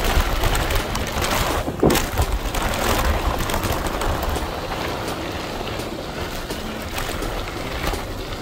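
Bicycle riding on a gravel forest road: knobby tyres rumbling over the dirt, with wind buffeting the microphone. A sharp clatter a little under two seconds in.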